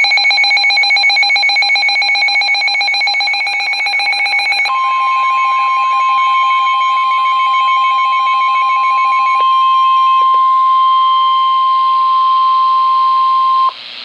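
Weather alert radios going off for a warning: a fast-pulsing electronic alarm beep in several pitches, joined about five seconds in by a steady single tone, the 1050 Hz NOAA Weather Radio warning alarm tone. The pulsing beep stops about nine seconds in, and the steady tone holds on until it cuts off abruptly near the end.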